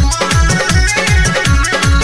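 Bhojpuri Chhath song music with a fast, heavy drum beat of about four beats a second under a steady melody.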